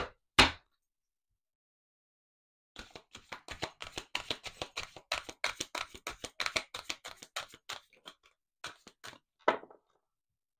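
A deck of oracle cards being shuffled by hand: one sharp tap at the start, then, after a short pause, about five seconds of rapid card clicks, with a few slower taps near the end.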